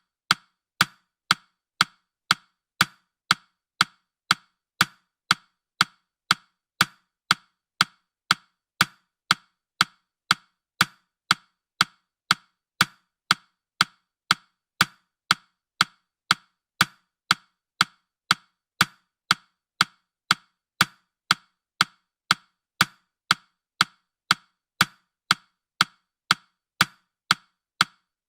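Countdown timer's ticking sound effect: short, sharp wood-block-like ticks at a steady pace of about two a second.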